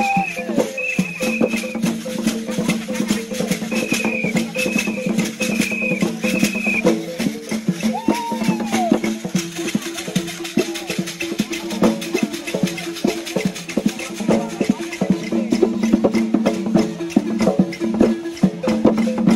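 Dagara funeral music: a wooden xylophone (gyil) played in fast repeated notes under a dense, rapid clatter of rattles and percussion. Short, high piping tones repeat near the start and again from about four to seven seconds in.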